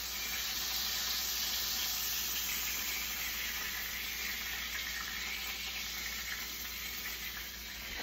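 Steaks and hot oil sizzling in a frying pan taken off the heat, a steady hiss that eases slightly toward the end as the steaks are lifted out.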